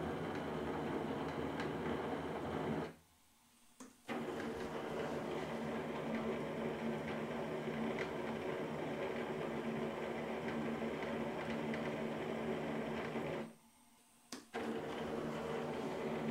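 Brushless motor driving a 3D-printed plastic planetary gearbox with no bearings and lightly greased gears, running with a steady whir and plastic gear noise. The sound drops out twice for about a second, around three seconds in and around thirteen seconds in.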